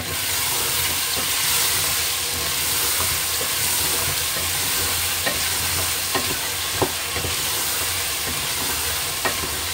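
Cubed potatoes frying in oil and tomato masala in a pot, sizzling steadily as they are stirred with a wooden spoon. There are a few light knocks of the spoon against the pot.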